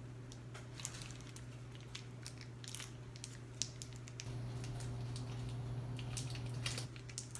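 Plastic MRE ration packaging crinkling and crackling in irregular sharp bursts as it is handled and pulled open. A steady low hum runs underneath and grows louder for a couple of seconds past the middle.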